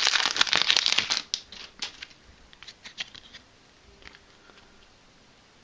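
Foil booster-pack wrapper crinkling loudly as it is pulled open, for about the first second, followed by a few faint rustles and clicks as the cards are handled.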